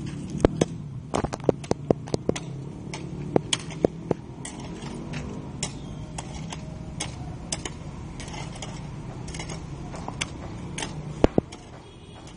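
A hoe chopping and scraping into stony dirt: a string of sharp, irregular knocks, one to three a second, over a low steady hum.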